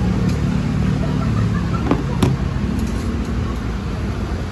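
Motor traffic passing close by: a steady engine rumble, with two sharp clicks about two seconds in.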